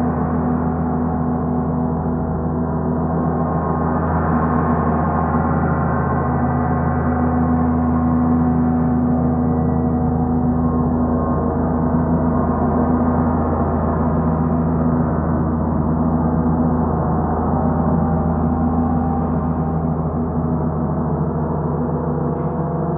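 Two large suspended gongs played together with soft mallets, one in each hand: a dense, steady wash of many overlapping tones, heaviest in the deep range, with no single strike standing out.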